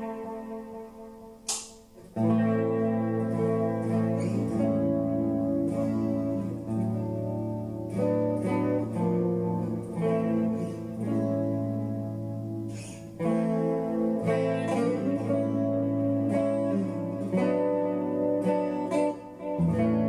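Instrumental background music with sustained chords and melody notes; it drops away briefly about two seconds in, then comes back at full level.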